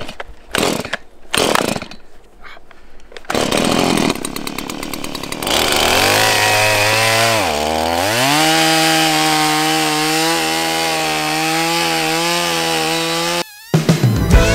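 Stihl two-stroke chainsaw being pull-started: rasping cord pulls, then the engine catches about five seconds in. It dips once, then runs at high, steady speed while cutting through a log, and cuts off abruptly near the end.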